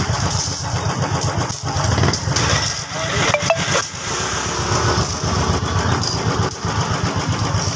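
Motorcycle engine running steadily nearby, a continuous low, fast-pulsing throb.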